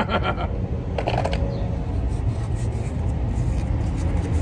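Rubbing and handling noise from a freshly cut piece of 2-inch PVC pipe, briefly at the start and again about a second in, over a steady low rumble.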